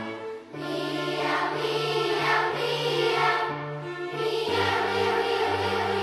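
Film-score music of held, choir-like chords that change every half second to a second, with a short drop in level just after the start.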